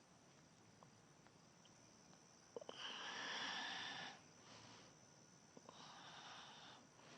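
A person breathing audibly during a yoga pose, two long breaths about three and six seconds in, the first the louder, with faint mouth clicks before each.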